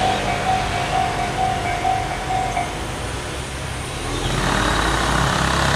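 Tobu level-crossing electronic warning bell, the Tojo Line-type tone, ringing in a steady repeating pattern and stopping about two and a half seconds in. Near the end a road vehicle passes over the crossing.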